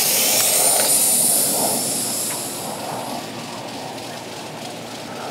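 Arrma Infraction 6S RC car's brushless motor and drivetrain whining high as it speeds away down the road, with a rushing noise. It is loud at first and fades over about three seconds as the car gets far off.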